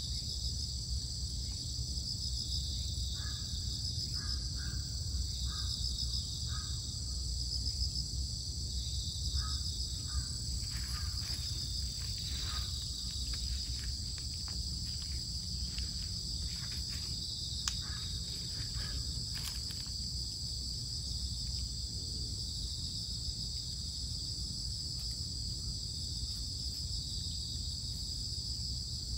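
Outdoor garden ambience: a steady, high, pulsing insect chorus, with a bird calling in short repeated notes during the first ten seconds. Scattered soft clicks and rustles come in the middle.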